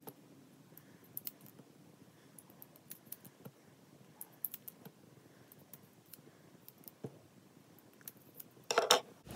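Small scissors snipping into short pieces of plastic drinking straw: scattered faint clicks and snips, with a brief louder noise near the end.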